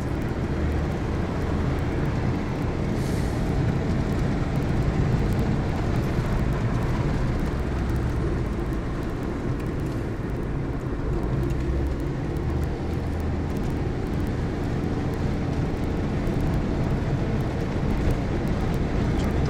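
Steady cabin noise from inside a moving car: a continuous low rumble of engine and road noise.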